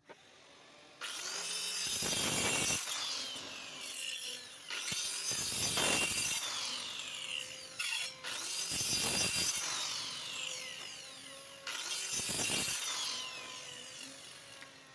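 Handheld electric cutter machine sawing through plywood four times, about three seconds per cut. Each cut starts suddenly and ends with the motor's whine falling as it winds down.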